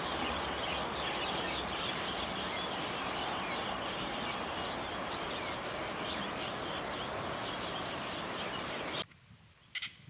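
A roosting flock of cattle egrets calling all at once, a dense continuous babble of many short overlapping calls. It cuts off abruptly about nine seconds in, leaving a quieter background with one brief sharp sound just before the end.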